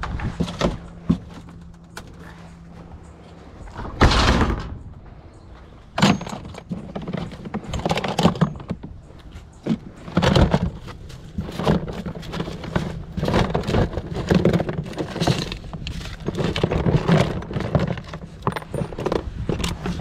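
Junk being rummaged and shifted in a dumpster: repeated clattering, knocks and thunks, with a loud clatter about four seconds in.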